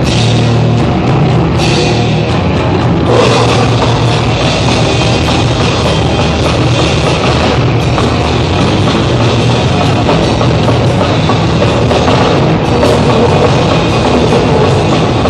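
A rock band playing loud heavy music with a drum kit, dense and unbroken throughout.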